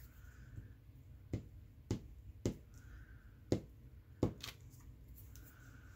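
About six short, sharp clicks or taps at uneven intervals: small objects being handled while paper craft pieces are placed on a journal page.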